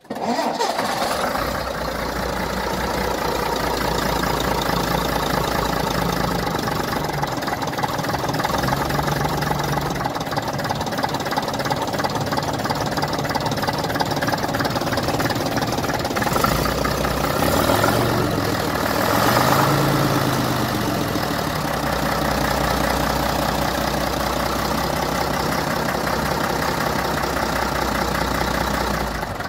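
AEC 9.6-litre six-cylinder diesel engine of a Routemaster bus idling steadily with its bonnet open. The revs rise and fall briefly a little past halfway, then settle back to idle.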